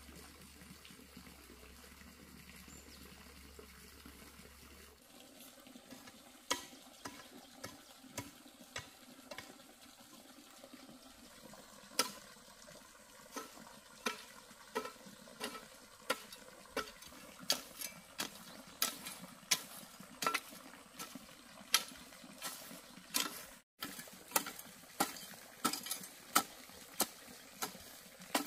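Metal hoe blade chopping into grassy soil: sharp strikes that begin a few seconds in, irregular at first, then settling into a steady rhythm of one to two strikes a second.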